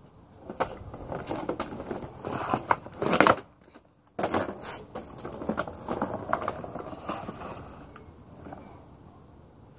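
Kids' scooter clattering on brick paving during tricks: wheels and deck knocking and clacking in quick irregular hits as it is ridden, hopped and set down. The loudest clatter comes about three seconds in, close to the microphone, followed by a brief near-silent gap.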